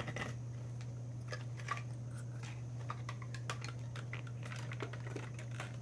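Light, irregular clicks and taps of small plastic toy pieces and packaging being handled, over a steady low hum.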